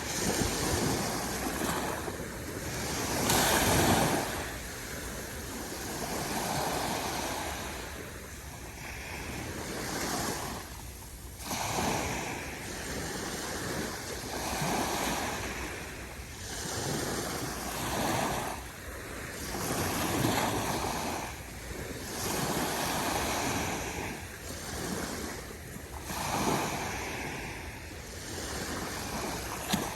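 Calm ocean waves breaking and washing up the shore, the surf swelling and fading every two to three seconds, loudest about three to four seconds in.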